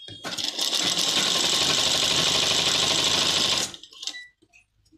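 Sewing machine stitching at speed: a fast, steady rattle of needle strokes that starts just after the opening and stops after about three and a half seconds.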